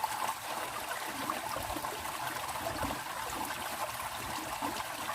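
Stream water running and trickling steadily.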